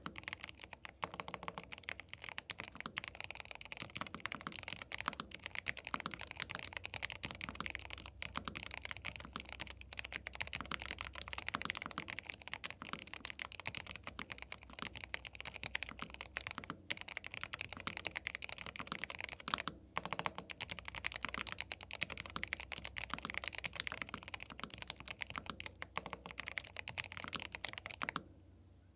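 Fast, continuous typing on a YUNZII B75 Pro gasket-mount 75% mechanical keyboard fitted with Milk linear switches: a dense run of keystroke clacks that stops shortly before the end.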